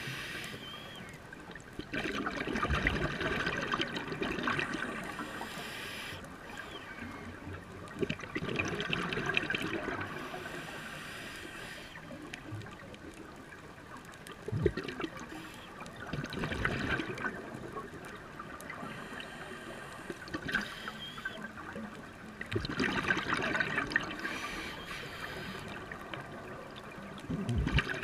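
Scuba exhalation bubbles gurgling out of a diver's regulator, heard underwater, swelling in a burst every six seconds or so with each breath out, with quieter stretches between.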